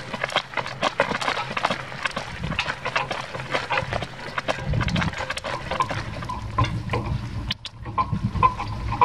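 A horse's hoofbeats and the rattle of a horse-drawn wagonette and its harness on a dirt track, full of irregular knocks and clicks. It briefly drops out about three quarters through, and near the end a short high squeak repeats about twice a second.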